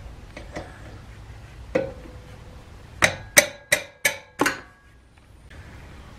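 Steel wrenches clinking as they are handled: one ringing clink, then about a second later five sharp ringing clinks in quick succession, roughly three a second.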